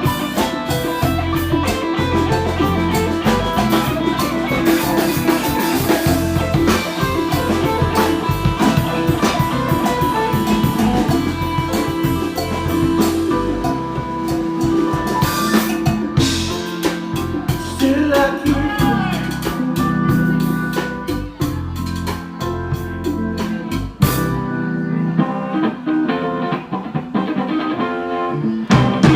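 Live rock band playing: electric guitar over a drum kit. Near the end the drums and cymbals drop out, leaving the pitched instruments.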